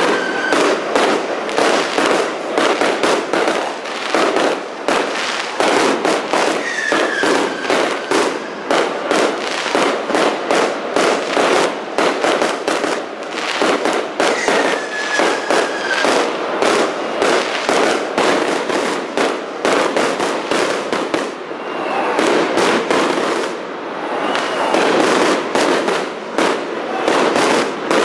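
Fireworks display going off in a dense, rapid string of bangs and crackles. Every several seconds a whistle glides down in pitch.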